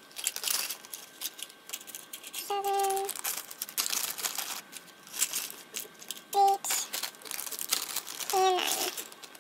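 Crinkling and rustling of supplies being handled, a run of irregular crackles, with a few short held voice notes in between.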